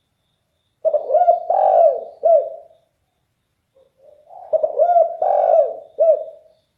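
Derkuku dove cooing loudly in a deep voice: two phrases, the first starting about a second in and the second a little after the middle, each a run of arched, rising-and-falling coo notes.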